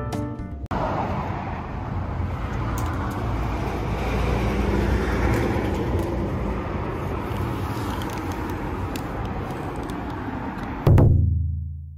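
Outdoor street ambience: steady road traffic noise with a low rumble and a few faint clicks. Near the end, a deep low tone strikes suddenly and fades away.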